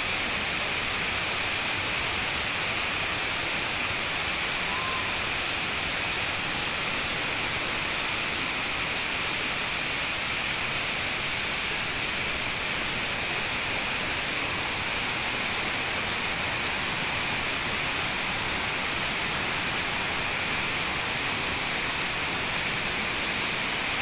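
Steady rush of flowing stream water and waterfall, an even hiss that does not change.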